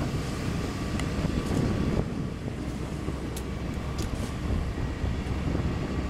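Steady low rumble of wind buffeting the microphone over a running excavator engine, with a few faint clicks and knocks from concrete blocks being handled.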